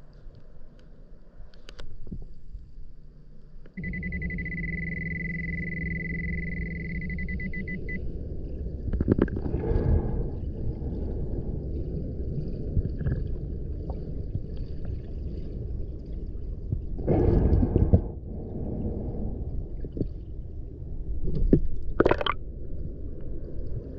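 Underwater rumble of water moving past the housed camera. A Pulse Dive underwater metal detector gives a steady high beep for about four seconds near the start, signalling metal under the coil. Louder rushes of noise come three times later on.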